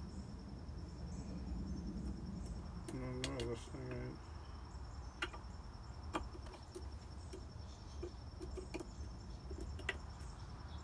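Faint, sparse clicks and taps of multimeter probes being handled on the terminals of a 24-volt battery pack, over a steady low hum and a steady high-pitched trill.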